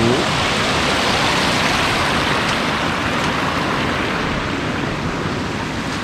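Waterfall and rapids rushing with a steady, even roar of water.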